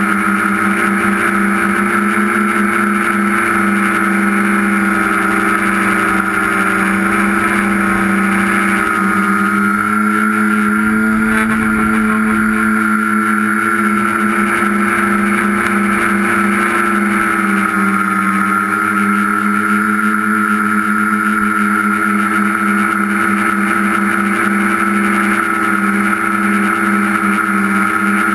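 Tricopter's electric motors and propellers buzzing steadily in a hover, heard close up from the onboard camera; the pitch shifts slightly about halfway through, then settles.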